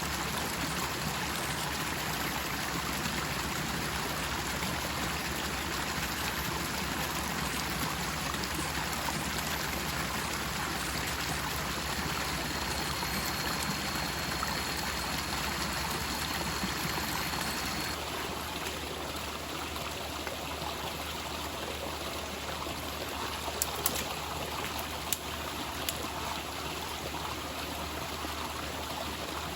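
Steady rush of a forest stream's flowing water, a little softer about two-thirds of the way through, with a few sharp clicks near the end.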